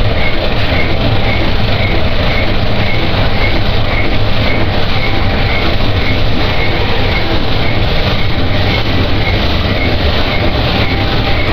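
Harsh noise music: a loud, unbroken mass of low rumble and hiss, with a steady run of short high blips about two or three a second, like a train's clickety-clack.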